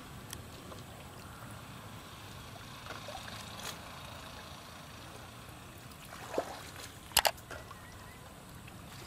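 Small fish splashing and flicking in shallow water trapped inside a net enclosure: scattered little splashes over a steady low rumble, with two sharp splashes close together about seven seconds in.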